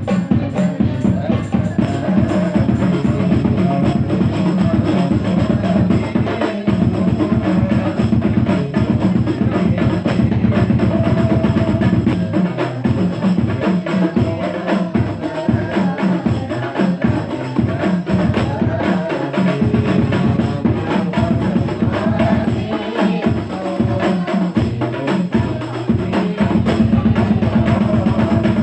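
Sholawat music driven by a busy hand-percussion ensemble: a steady, dense rhythm of drum strokes with woodblock-like clicks and jingles, loud and unbroken throughout.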